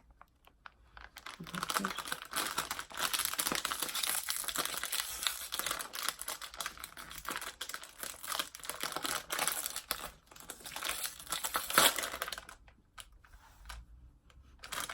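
Plastic wrapper of an ube snack cake crinkling as it is pulled and torn open, a dense crackle for about ten seconds with its loudest snap near the end.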